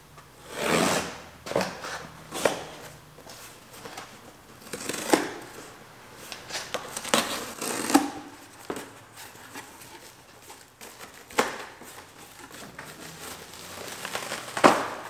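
Cardboard shipping box being opened: a razor blade slitting the packing tape, then the cardboard flaps pulled back and the plastic packing inside crinkling. It comes as irregular scrapes and rustles with a few sharp snaps, the loudest near the end.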